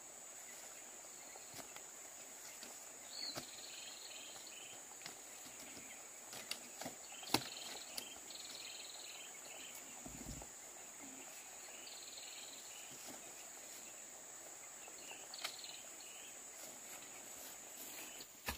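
Steady high-pitched drone of insects such as crickets, with short groups of quick chirps now and then and a few faint clicks.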